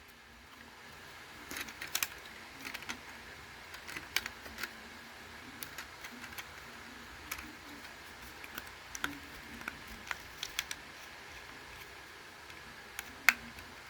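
Scattered light clicks and taps of a plastic smoke detector being handled.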